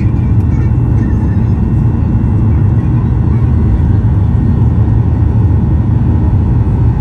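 Jet engines of an airliner at takeoff thrust, heard inside the cabin: a steady, loud, deep rumble as the plane lifts off and climbs.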